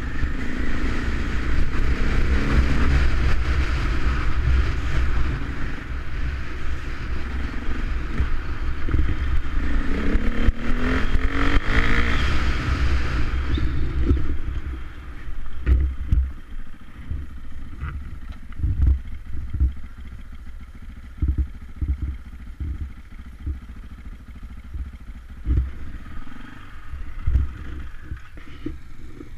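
KTM enduro dirt bike engine running under throttle with wind rushing on the helmet camera, the pitch rising and falling as it revs around the middle. About halfway through it drops to a quieter low run, with irregular low thumps to the end.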